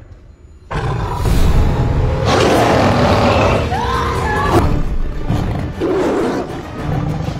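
A tiger roaring and snarling loudly. It starts suddenly after a brief hush, about a second in.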